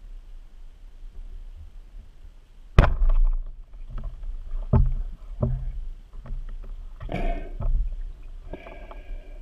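Roller speargun fired underwater: one sharp, loud snap about three seconds in as the shaft is released, followed by several smaller knocks and clattering as the gun's bands and shooting line settle.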